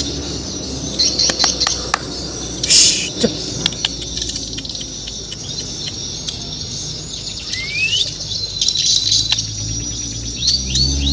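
Murai batu Borneo (shama) singing in short, scattered high chirps and clicks, with a rising whistle about eight seconds in and a quick run of notes near the end.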